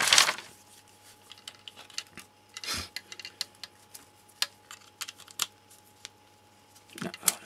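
Small plastic clicks and handling rattles of a clamp-on current probe being handled and clipped around a wire, with a faint steady electrical hum underneath.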